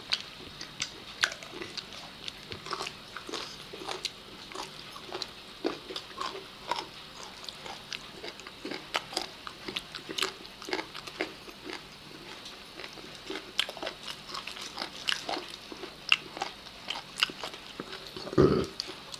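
Close-up eating sounds of people eating rice and chicken by hand: irregular wet lip smacks and chewing clicks, several a second, with one louder, lower mouth sound near the end.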